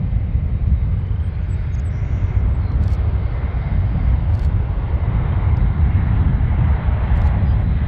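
Airbus A400M Atlas's four TP400 turboprop engines and propellers on final approach: a steady deep drone, with the rushing mid-range sound growing over the last few seconds as the aircraft comes closer.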